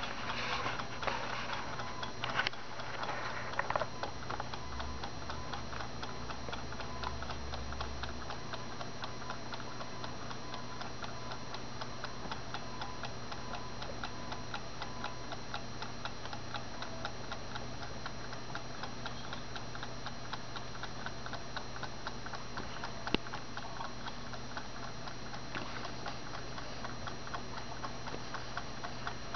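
Antique Kaiser automaton birdcage clock ticking fast and evenly, over a steady low hum. There is some brief rustling near the start and one sharper click about 23 seconds in.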